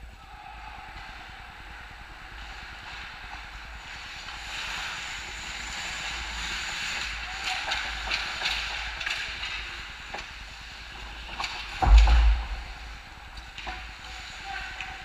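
Ice hockey play on the rink: skates scraping and hissing across the ice, rising through the middle, with a run of sharp stick and puck clacks, then a single loud thump about twelve seconds in.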